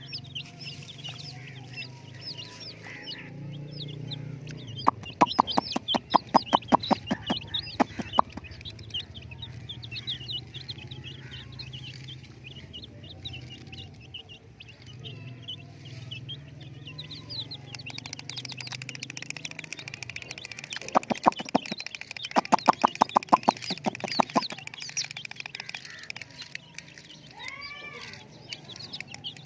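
Chicks peeping continuously in quick, high, short chirps over a low hum. Twice, for about three seconds each, a loud rapid rattle of many evenly spaced strokes cuts in.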